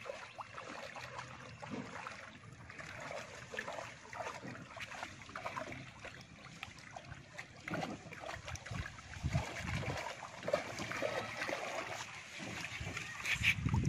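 Shallow water sloshing and splashing as a bamboo-framed triangular push net is shoved through it by people wading. Irregular swishes and small splashes, a little busier in the second half.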